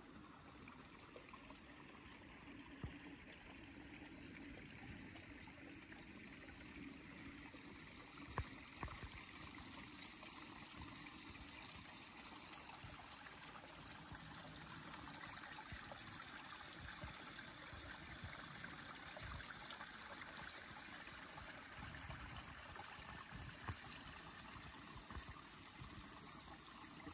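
A small, shallow creek trickling: a faint, steady rush of running water, with a few brief sharp clicks, the sharpest at about 3, 8 and 24 seconds in.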